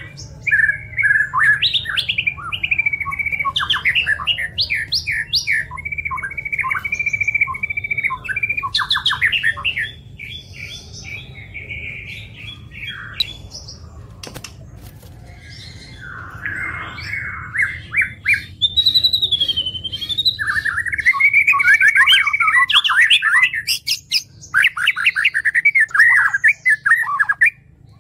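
White-rumped shama (murai batu) singing a long, varied song of fast rattling runs and clear whistled phrases. It goes quieter for several seconds in the middle, then loud again.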